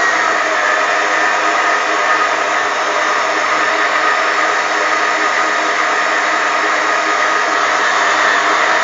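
Electric stand mixer running steadily at one speed, its beater whipping cake batter in a stainless steel bowl: an even motor whine with the whirr of the batter.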